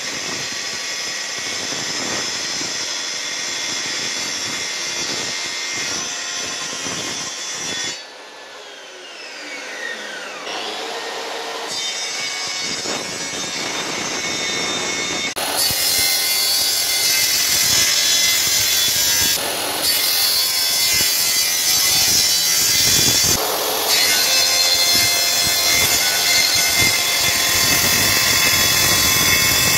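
Makita plunge-cut circular saw on a guide rail cutting oak strips, a steady dense whine and rasp. About a third of the way in, the blade winds down with a falling whine, then the saw starts again and cuts louder through the second half.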